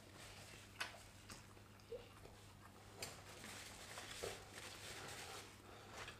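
Quiet eating sounds at a table: a few faint clicks and small smacks from chewing and cutlery touching plates, over a low steady hum.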